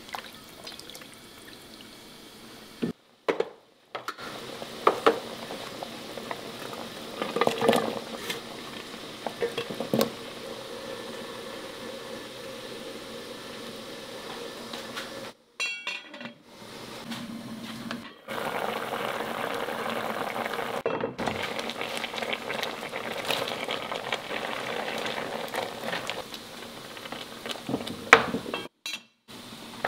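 Spatula stirring chicken pieces in a thick seasoning sauce in a pot, with wet scrapes and clinks against the pot. In the second half the stew bubbles at a boil, and a sharp clatter near the end comes as the pot lid is lifted.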